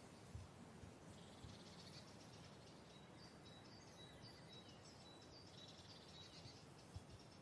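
Near-silent nature ambience: faint high-pitched chirping over a low steady hiss, with a couple of soft low thumps and no quacking.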